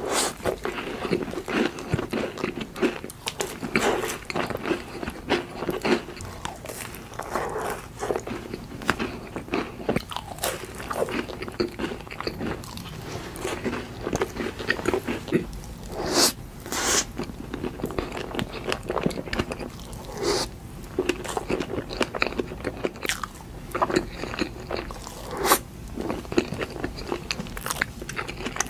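Close-miked eating sounds of a person biting and chewing cakes and macarons: continuous wet smacking and chewing, with a few sharper bites about halfway through.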